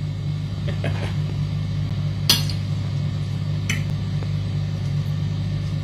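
Knife and fork clinking against a plate while cutting up an omelette: a few separate sharp clinks, the loudest a little past two seconds in. A steady low hum runs underneath.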